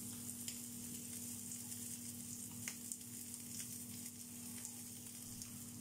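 Pork neck steaks sizzling in hot oil: a steady hiss with a few sharp crackles, over a low steady hum.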